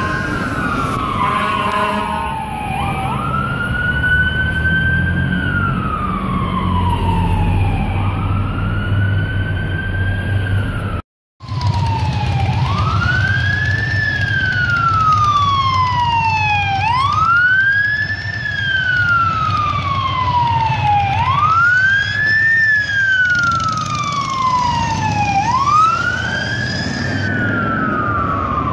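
Fire truck siren wailing: each cycle climbs quickly and then falls slowly, over a low engine rumble, with a brief horn blast near the start. After a short break about eleven seconds in, another fire truck's siren wails in the same pattern, about every four seconds.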